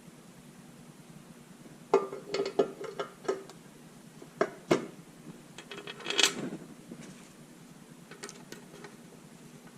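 Metal tools and parts being handled: a cluster of light clinks, then two sharp knocks about a third of a second apart, then a short rattling scrape and a few faint ticks.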